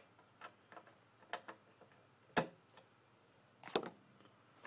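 Faint, irregular light clicks and ticks, with two sharper clicks about two and a half and nearly four seconds in.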